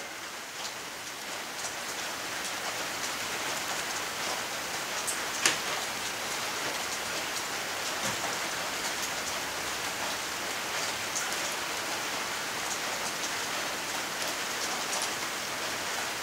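Steady hiss with a few light metallic clicks, the clearest about five and a half seconds in, as U-bolt nuts are threaded on by hand at the driveshaft's rear yoke.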